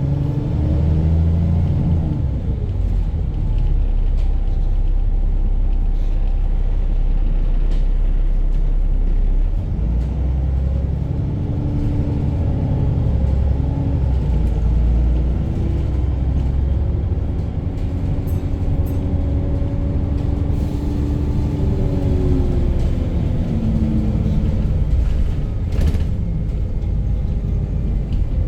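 VDL bus's diesel engine running with a heavy low rumble, its pitch rising and falling as the revs change, and a single sharp knock near the end. The engine is one the driver reports as knocking.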